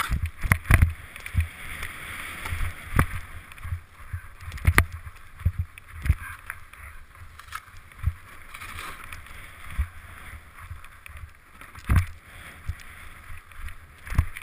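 Snow hissing and scraping under a rider's edges on a downhill run through fresh snow, heard through a helmet-mounted action camera, with irregular low thumps and a few sharp knocks throughout.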